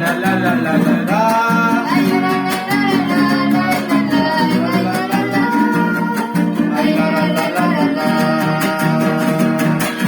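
Son huasteco (huapango) played by a trío huasteco: a violin melody with sliding, wavering notes over fast, rhythmic strumming of jarana huasteca and huapanguera.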